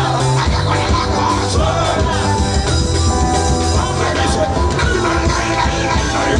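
Loud band music with a steady bass line and a singing voice.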